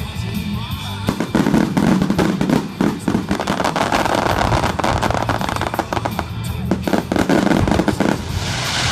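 Fireworks finale: a dense, rapid barrage of bursts and bangs, with a loud hissing crackle swelling in near the end.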